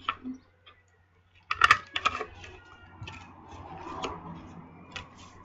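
Sharp clicks and clacks of a thumb notch punch and cardstock being handled, the loudest about one and a half seconds in, then a soft rubbing of card sliding as the punch is positioned.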